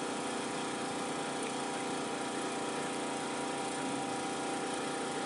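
An engine running steadily at idle: a constant, even hum.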